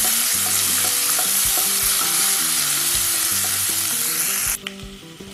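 Sliced onions and curry leaves sizzling in hot oil in a granite-coated nonstick kadai, stirred with a spatula that gives a few light clicks against the pan: the onions are being sautéed until soft. The sizzle cuts off suddenly about four and a half seconds in, leaving soft background music.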